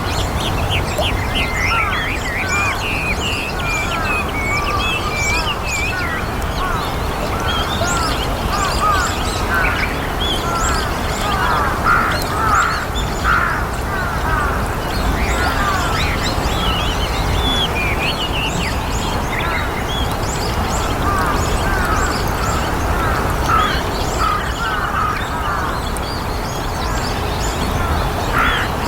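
A flock of white-cheeked starlings calling continuously: many short chattering calls overlapping one another, over a steady low background hum.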